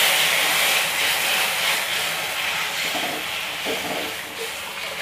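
Tamarind water poured into a hot kadai of fried onions, tomatoes and spices, sizzling in a steady hiss that slowly dies down as the pan is stirred.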